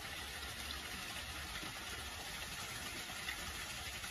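Small garden waterfall pouring over rocks into a pond, a steady splashing rush.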